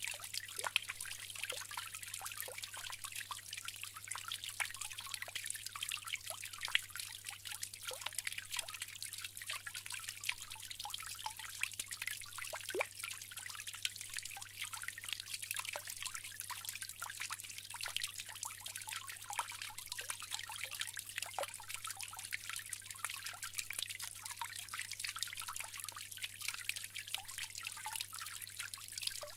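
Bamboo water fountain trickling steadily, with many small drips and splashes.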